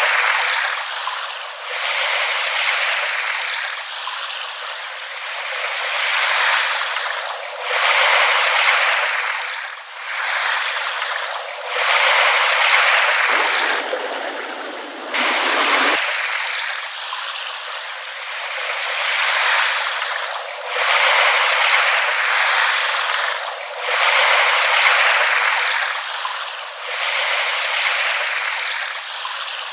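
Small waves lapping on a shore, the wash of water swelling and falling back about every two seconds.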